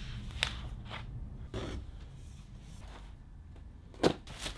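Handling noises: a few short, sharp clicks and knocks, the loudest about four seconds in, over a low steady hum.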